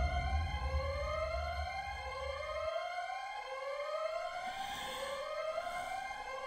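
Synthesized siren-like tone that rises over and over, about once a second, each rise overlapping the next so it seems to climb without end. A low rumble underneath fades out about two and a half seconds in.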